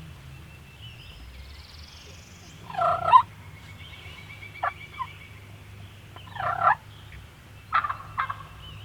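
Wild turkey gobbler gobbling: two loud rattling gobbles a few seconds apart, then shorter calls near the end, with faint high bird chirps behind.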